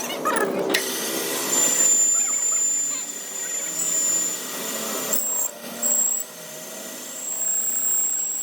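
Workshop power tool running, a dense grinding noise with a steady high-pitched whine that breaks off briefly about five seconds in.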